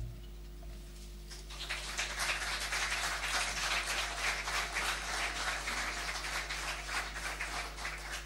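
Audience applause that starts about a second in and carries on as steady clapping, over a low electrical hum.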